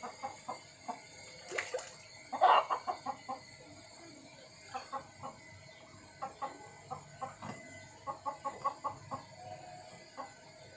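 A domestic hen clucking in repeated short calls, in quick runs of several clucks, with one louder call about two and a half seconds in. This is the fussing of a hen looking for a place to lay her egg.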